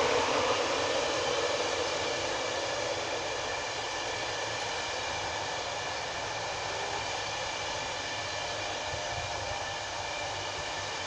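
InterCity 225 train of Mark 4 coaches rolling past on the platform line as it slows to stop, a steady wheel-and-rail rumble that eases down over the first few seconds.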